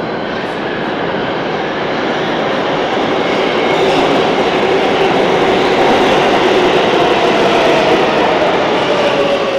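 New York City Subway L train pulling out of the station and running past the platform. The rumble and rattle of the cars grows louder over the first few seconds as it picks up speed, then holds steady.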